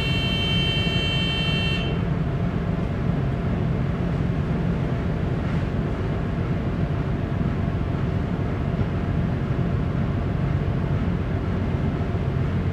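Steady low rumble of a bulk carrier's engine and machinery as the ship gets under way from the quay. A brief high-pitched buzzy tone sounds over it for the first two seconds.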